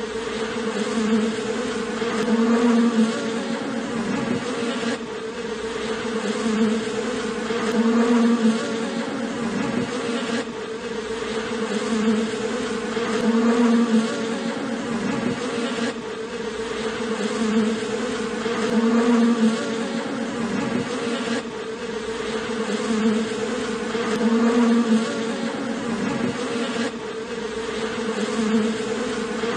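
Dense buzzing of a honey bee colony clustered on its comb, a steady hum that swells and eases about every five to six seconds.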